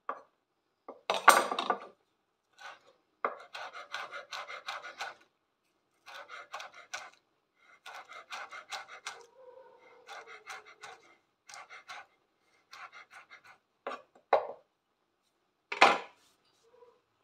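Kitchen knife chopping chives on a wooden cutting board: runs of rapid taps of the blade on the wood, in short bursts with pauses between, and a few louder single knocks, the loudest near the end.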